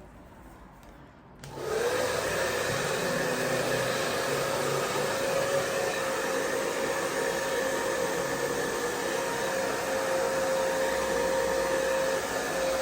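Hand-held hair dryer switched on about a second and a half in, then running steadily with a whine over the rush of its air.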